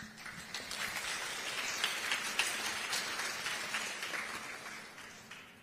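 Audience applauding, a dense patter of many hands clapping that dies away near the end, over a faint steady hum.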